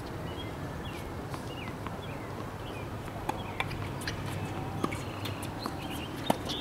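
Outdoor tennis-court ambience: a steady low background hum, faint bird chirps in the first second or two, and a few scattered sharp pops of tennis balls, the clearest after about three seconds and again near the end.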